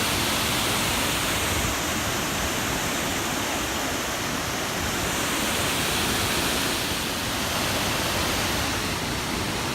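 A waterfall running steadily, really loud: an even rush of falling water with no breaks.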